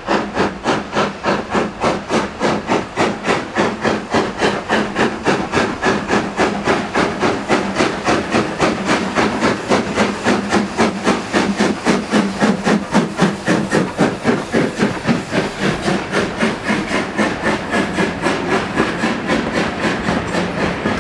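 Midland 4F 0-6-0 steam locomotive working hard with a train, its exhaust beating evenly about three to four times a second as it approaches and passes. Near the end the coaches run by.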